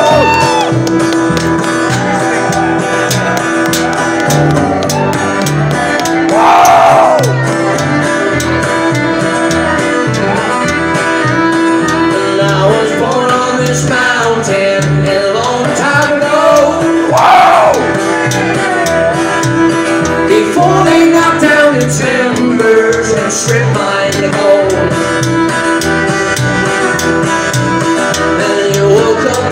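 Live acoustic string band playing a country-folk song: strummed acoustic guitar, upright bass and fiddle, with a sung melody. Two brief loud bursts cut across the music, about a quarter of the way in and again just past halfway.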